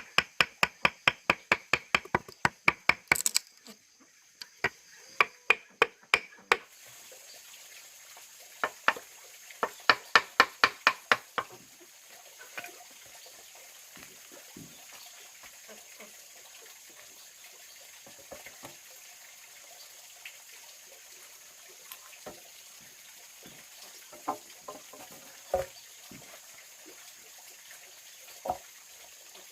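Runs of rapid, evenly spaced sharp knocks, about seven a second, in three bursts over the first dozen seconds, then scattered single light knocks and clinks.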